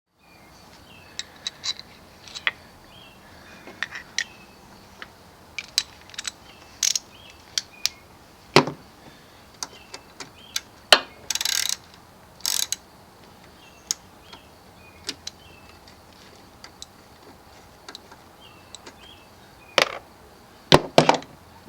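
Metal hand tools clicking and knocking, with a ratchet wrench run in short rasping spells about eleven and twelve and a half seconds in.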